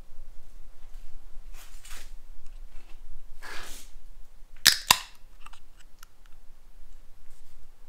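Aluminium drink can being opened by its ring-pull: two sharp snaps about a quarter second apart, followed by a few light ticks, with a couple of soft swishes before.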